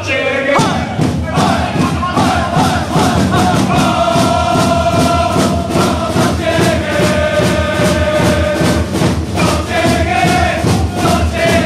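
Crowd of football supporters chanting loudly in unison to a steady, fast beat; the beat and full chant start about half a second in.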